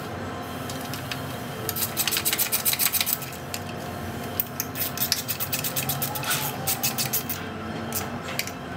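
Nuts being done up on the screws that hold a go-kart brake master cylinder to the chassis: runs of rapid clicking from the hand tool, about seven a second, starting about two seconds in, then a second run from about four and a half seconds in.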